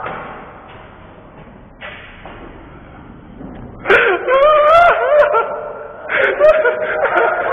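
Quiet room noise, then from about four seconds in, voices calling out in long, wavering cries, with a second burst of calls about six seconds in.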